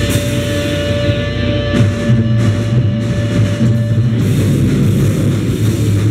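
Live noisecore band playing loud distorted guitar and drums. A steady held tone over a dense guitar drone gives way, about two seconds in, to heavier playing with drum hits and low distorted chords.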